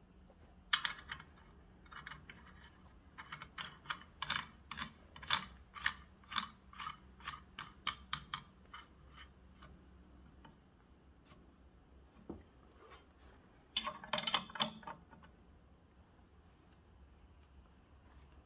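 Light metallic clicks and clinks of a connecting-rod bushing press tool being assembled by hand, as a brass piece and nut go onto its threaded rod. There is a run of irregular clicks, a couple a second, through the first half, then a quick cluster of clinks a little past the middle.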